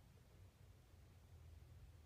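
Near silence: only a faint, steady low rumble and no bird calls.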